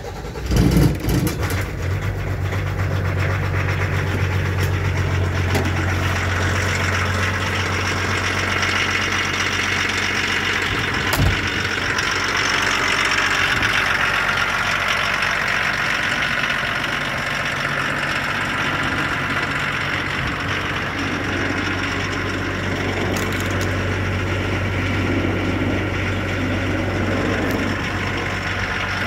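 Pinzgauer 716 4x4 engine started on the key: it catches about half a second in, revs briefly, then idles steadily.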